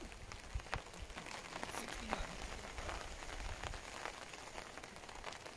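Steady rain falling, with many sharp drop hits scattered irregularly through it.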